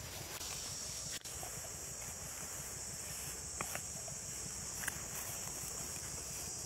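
Steady high-pitched insect chorus of crickets or cicadas in grassland, with a couple of faint ticks near the middle.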